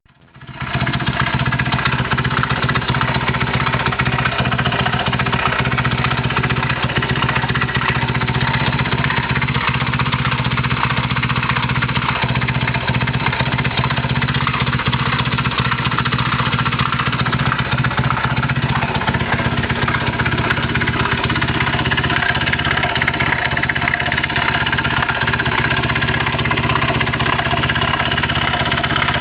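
Honda Monkey's small single-cylinder four-stroke engine idling steadily with an unusual noise, which the owner is recording as an abnormal sound.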